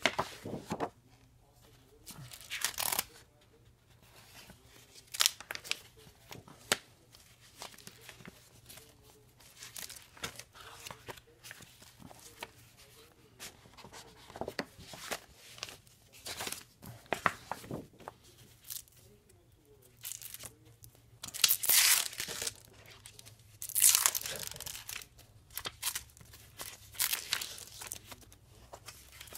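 Clear plastic sheet protectors and paper pages being lifted and turned by hand, crinkling and rustling in short irregular bursts, the loudest two a little past the middle.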